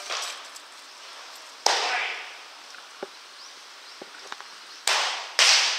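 Baseballs smacking into catchers' mitts in a bullpen: sharp pops, each with a short echo, one about one and a half seconds in and two in quick succession near the end.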